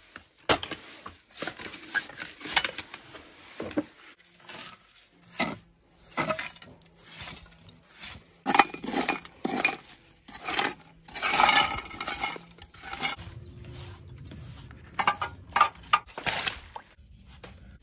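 A hand tool scraping and brushing loose old cement from the base of a masonry chimney where it meets clay roof tiles. It is an irregular run of short, gritty scrapes, with hard clinks of bits of tile and stone among them.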